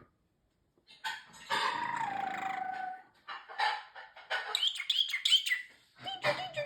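Parrotlet calling: a long pitched call that slides down in pitch, then a quick run of high chirps, then a short wavering call near the end.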